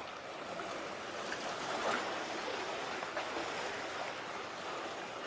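Sea water washing and lapping along the shore in a steady rush of noise that swells a little about two seconds in.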